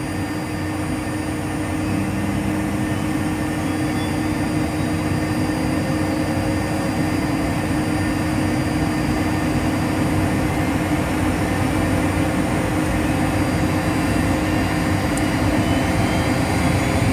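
Cessna Citation V's Pratt & Whitney Canada JT15D turbofans heard from the cockpit: one engine running while the second spools up through its start, a steady hum with a whine that climbs slowly in pitch as the starting engine gains speed.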